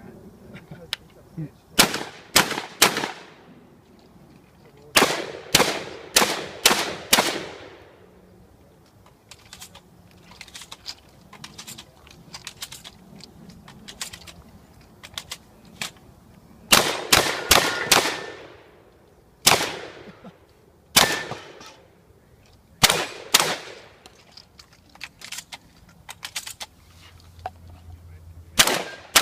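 A shotgun fired in quick strings of two to five shots, each shot ringing out briefly, with pauses between the strings. Fainter clicks in the pauses are shells being loaded into the gun, which started the stage with only three shells.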